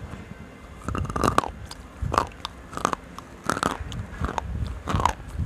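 Slate pencils being bitten and crunched between the teeth close to a microphone: a series of sharp, brittle crunches starting about a second in, about one every half to one second.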